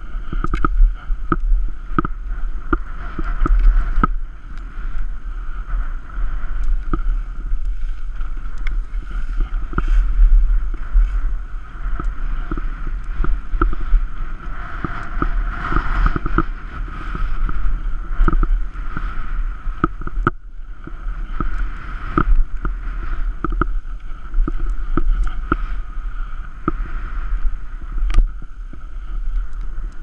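Skis carving and sliding over snow, heard through a helmet-mounted camera: a steady muffled rush of snow and wind noise with frequent knocks as the skis hit bumps and turn.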